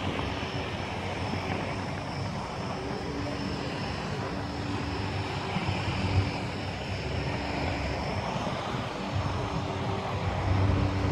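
Steady drone of an aircraft engine, with a low rumble underneath.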